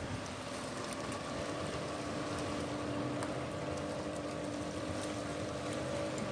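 A boat engine running with a steady drone, over a background hiss.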